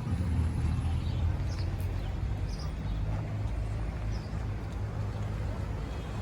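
Steady low rumble, with a few faint short high chirps about one and a half, two and a half and four seconds in.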